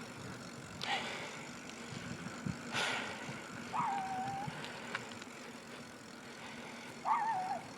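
Faint outdoor background with a steady low hum of distant traffic, two soft knocks about one and three seconds in, and two short wavering high-pitched cries about four and seven seconds in.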